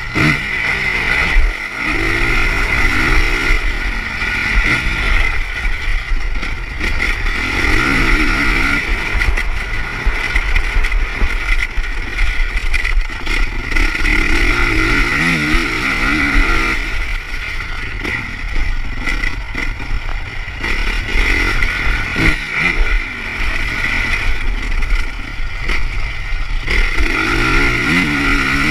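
Motocross bike engine heard from the bike itself, revving up and falling off again and again as the rider accelerates and shifts, over constant wind rush on the microphone, with scattered knocks and clatter from the suspension over bumps.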